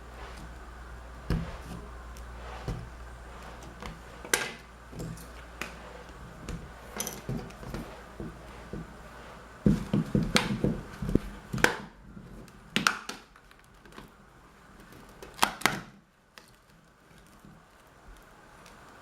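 Sharp plastic clicks, snaps and small taps of a tablet's casing being pried apart by hand, with a quick cluster of snaps about halfway through and a few isolated cracks near the end.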